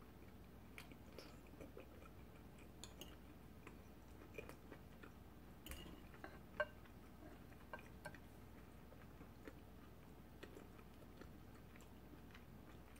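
Faint chewing of a mouthful of soft pasta in pumpkin cream sauce, with scattered small wet mouth clicks.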